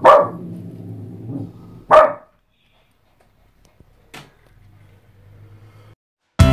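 Small shaggy dog barking in short sharp barks to get another dog to play: one right at the start, another about two seconds in, and a fainter one about four seconds in.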